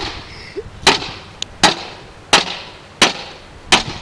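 Desktop computer case being struck again and again with a long bar: five hard blows, each with a short ring, about three quarters of a second apart.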